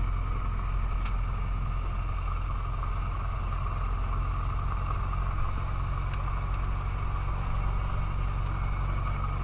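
Cessna 150's four-cylinder Continental O-200 engine and propeller running steadily at low taxi power, heard inside the cabin as a constant low drone.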